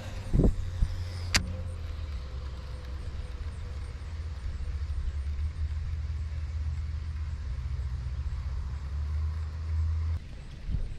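Wind rumbling steadily on the microphone, cutting out abruptly near the end. There is a sharp click about a second and a half in.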